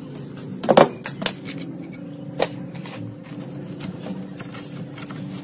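Hand tools and a metal loudspeaker frame being handled on a workbench: a few sharp clicks and knocks as pliers are set down and the frame is moved, the loudest about a second in, over a steady low hum.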